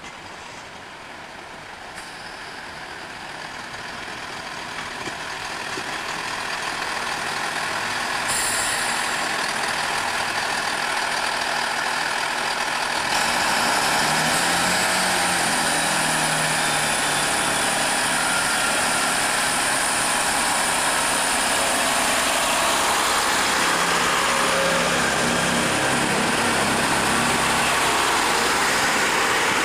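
Class 165 Turbo diesel multiple unit approaching and running slowly alongside the platform. Its underfloor diesel engines grow steadily louder over the first eight seconds or so, then run loud, with the engine note rising and falling.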